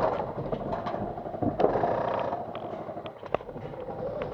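Scattered airsoft gunfire: irregular single sharp shots, the loudest a little over three seconds in.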